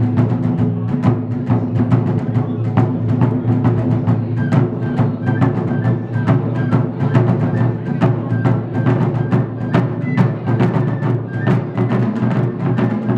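Japanese taiko drums struck by two drummers in a steady, dense rhythm. From about four seconds in, a bamboo transverse flute plays a melody of short high notes over the drums.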